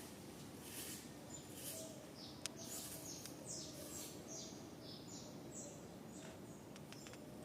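Small bird chirping a quick series of short, high notes over a faint background hiss, with a single sharp click about two and a half seconds in.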